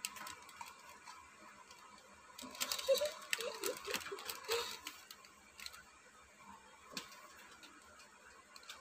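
Cardboard boxes and paper inserts of a phone's packaging being handled: rustling and light clicks, busiest from about two and a half to five seconds in, with a single sharp click near seven seconds.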